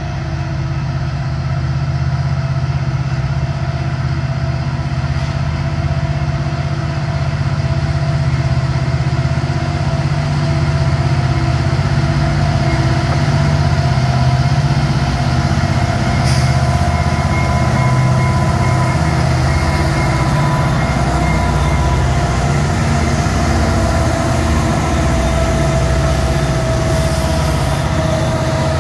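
Canadian National diesel freight locomotives approaching at the head of a loaded grain train: a steady low engine rumble that grows gradually louder as they draw near, with a few thin steady whining tones over it in the second half.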